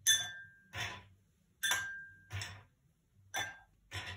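Ice cubes dropped one at a time from tongs into a tall glass, clinking against the glass: about six separate clinks, each with a short ringing tone.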